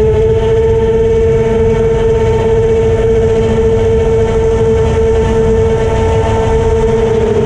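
Racing quadcopter's four Racestar 2205 2300kv brushless motors spinning 5045 two-blade props, giving a steady whine that holds nearly one pitch in cruising flight, over a rush of air.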